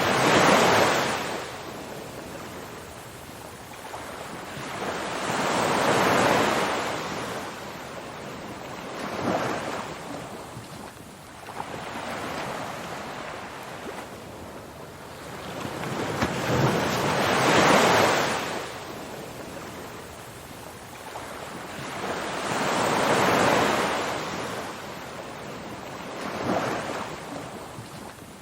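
Ocean waves breaking and washing up, a surge of surf noise rising and falling away every few seconds.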